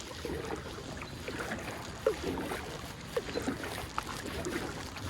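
Water gurgling and lapping against a kayak's hull as it drifts, with a few small knocks.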